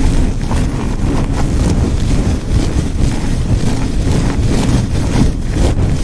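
Close-miked rubbing or brushing against the microphone: a continuous dense rumble with faint, irregular scratchy strokes.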